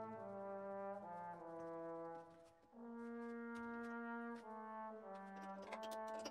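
Background music: a slow melody of long held notes in a brass-like timbre.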